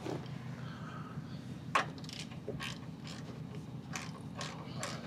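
Hand ratchet wrench tightening the nut on a motorcycle brake arm: irregular ratchet clicks with one sharper metal knock about two seconds in, over a steady low hum.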